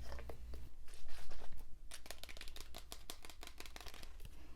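Close-miked ASMR handling sounds: a rapid, irregular run of soft crackling clicks and rustles, loudest about a second in.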